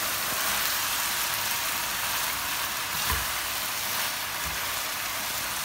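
Noodles, chicken and vegetables sizzling in a hot nonstick wok as they are tossed with tongs: a steady hiss, with a couple of soft knocks.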